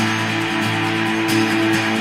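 Background music carried by guitar, steady throughout.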